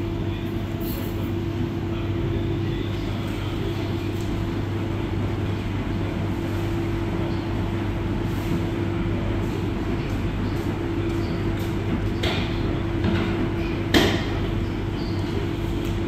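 Electrolux Professional WN6-14 front-loading washing machine running early in its wash cycle: a steady motor hum as the drum tumbles the load. Two short knocks come near the end, the second the louder.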